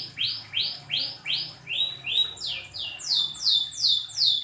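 Domestic canary singing a long rolling song. It repeats an upswept note about three times a second, shifts about two seconds in to a couple of lower, flatter notes, then runs into quick falling whistles.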